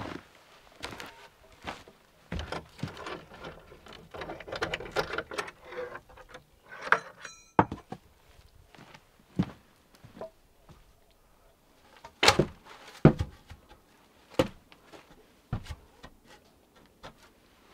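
Wooden boards being handled and fitted by hand, with scraping and rustling, then a few sharp knocks of wood against wood.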